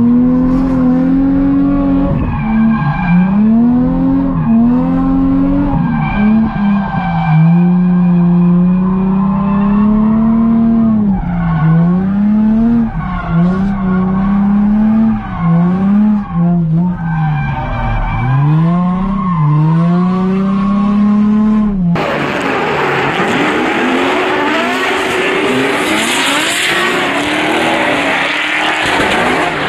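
Nissan 350Z engine revving up and dropping back again and again, about every one to two seconds, as the car is driven hard, heard from inside the cabin. About 22 seconds in it gives way abruptly to a denser, noisier track sound of distant cars revving and tyres screeching.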